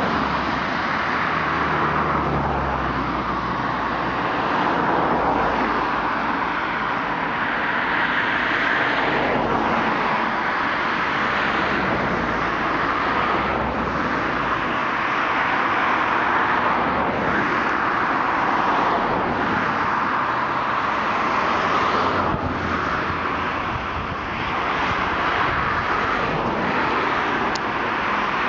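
Floodwater of the River Thame rushing steadily, a constant loud rush of water.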